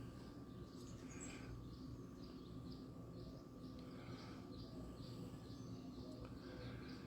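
Faint, high bird chirps repeating about twice a second, over a steady low hum.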